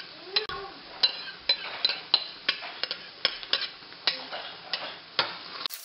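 A spatula scraping and tapping against a bowl as tomato sauce is emptied into a pan: a string of sharp, irregular clicks and knocks, a few a second.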